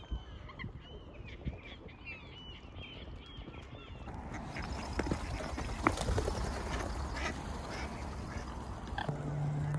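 Gulls and ducks calling at a lake: a quick run of short calls in the first few seconds, over wind rumble on the microphone, with a sharp knock about six seconds in.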